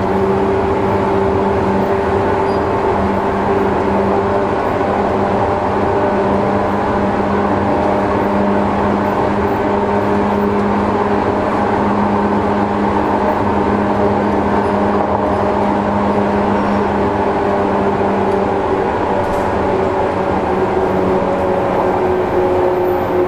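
On-board running sound of a JNR 185 series electric train heard at a car gangway: the MT54 traction motors whine at a near-steady pitch over loud wheel and rail noise while the train runs at a fairly constant speed.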